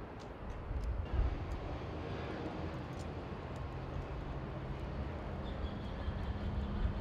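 Outdoor field noise: a gusty low rumble with a steady engine-like hum and a few faint clicks.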